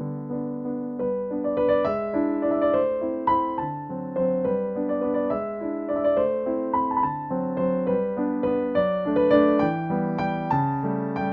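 Background music: a piano or electric piano playing a gentle, evenly paced melody over chords.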